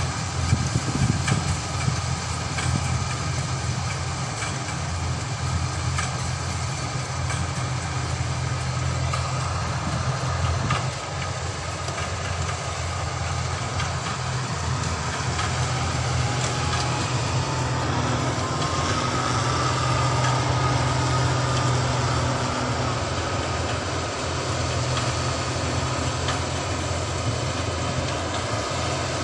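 A New Holland combine harvester runs steadily as it works through cut rice stalks, a constant engine drone. About halfway through, a faint whine rises in pitch and then holds for a few seconds.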